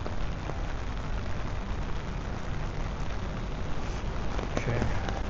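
Steady rain falling, an even hiss with a few faint drop ticks over a low rumble.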